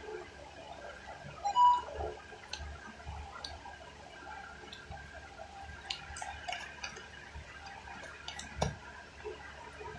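A metal spoon tapping and scraping in an aluminium foil tray of rice, giving a scatter of light clicks. About one and a half seconds in there is a brief high-pitched tone, the loudest sound.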